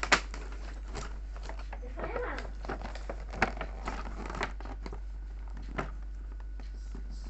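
Toy packaging being handled and pulled open: crinkling and tearing with scattered sharp clicks and knocks, the loudest right at the start and another about three and a half seconds in.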